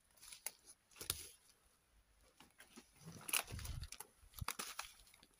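Footsteps crunching and rustling through dry leaves, twigs and undergrowth, in a scatter of short irregular crackles with a louder stretch about three seconds in.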